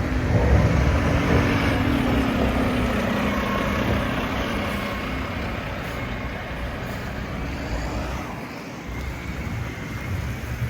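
A heavy road vehicle passes close by. Its engine drone falls in pitch and fades over the first few seconds, leaving a steadier, quieter street rumble.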